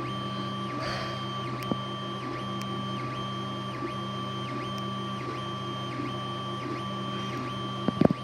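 3D printer running a print, its stepper motors whirring in a repeating back-and-forth pattern of about two passes a second over a steady hum. A few sharp clicks come near the end.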